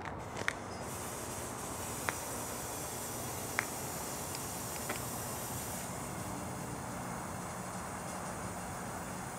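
The whale figure's spout sprayer hissing steadily as it blows a plume of mist, starting about a second in. A few short sharp clicks sound over a low steady background noise.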